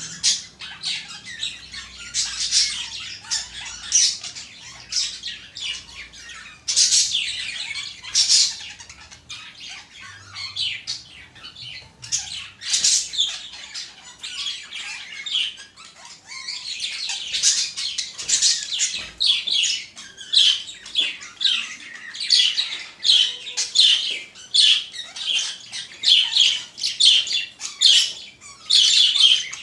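Budgerigars chattering with a busy run of high chirps and squawks, quickening in the second half into a fast series of sharp, repeated chirps.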